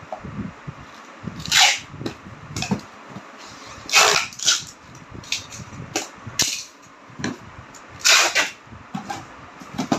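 Brown packing tape being ripped off the roll in several short, sharp pulls and pressed onto a cardboard box, with soft knocks and rustling of the box being handled.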